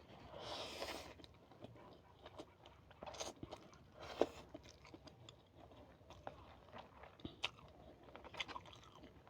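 Close-miked eating: chewing and crunching with many small sharp mouth clicks. There are two slightly louder bites, a little after the start and about four seconds in.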